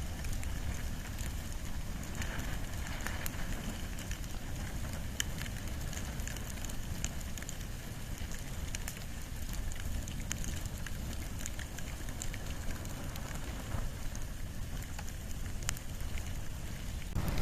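Wood and bamboo fire crackling, with many small sharp pops scattered over a steady low rumble.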